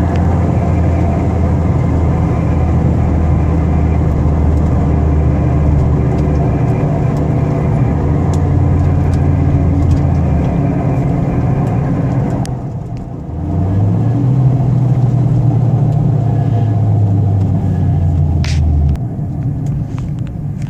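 Turbocharged 1.8-litre four-cylinder engine of a 2002 Volkswagen Jetta 1.8T running under way, heard from inside the car. It drops off briefly about two-thirds of the way through, then picks up again with a short rise in pitch, holds steady, and eases off near the end.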